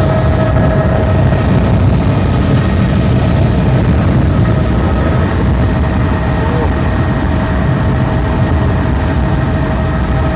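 Helicopter in flight, heard from inside the cabin: a steady, loud rotor and engine drone with a deep rumble and a constant high-pitched whine.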